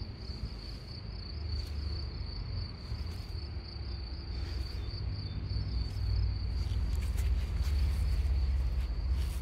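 Insects keep up a steady, evenly pulsing high-pitched trill, over a low rumble.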